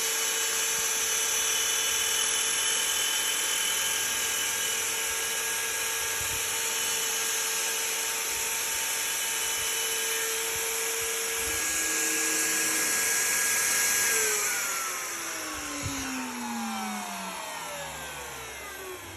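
Router on a Legacy Maverick CNC machine running at speed as it cuts a circle through a wooden board, a steady high whine. About fourteen seconds in the router is switched off and winds down, its pitch falling steadily.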